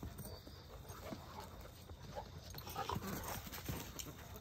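A few faint, short animal calls close together about three seconds in, over a quiet outdoor background.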